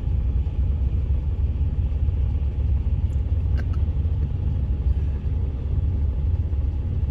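Steady low rumble of a passing autorack freight train, heard from inside a car stopped at the crossing.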